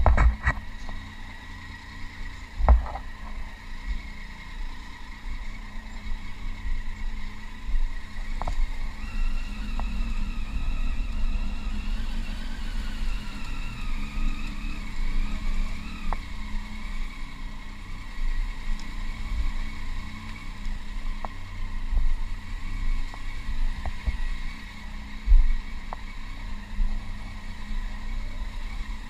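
Triumph Tiger 800's three-cylinder engine running at low speed on a ride over cobblestones, its pitch rising and then falling between about ten and sixteen seconds in. Several short knocks come from the bike jolting over the cobbles, the loudest near the start and about twenty-five seconds in.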